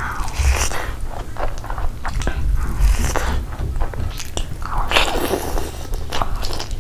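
Close-miked eating: big mouthfuls of fried rice and bites of curried chicken, chewed with many short mouth clicks and smacks over a low background hum.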